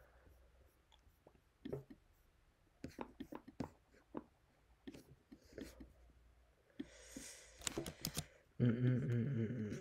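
Sparse, quiet clicks and taps from working a computer, with a short breathy hiss about seven seconds in, then a man's voice muttering low near the end.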